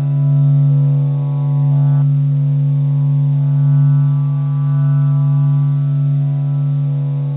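A steady low drone with a stack of overtones, a meditation track billed as the sound of the sun. The upper overtones shift slightly about two seconds in.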